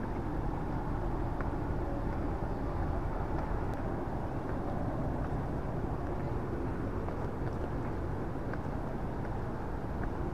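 The Bow Falls on the Bow River: the steady rushing of falling water, its noise sitting mostly low and staying even throughout.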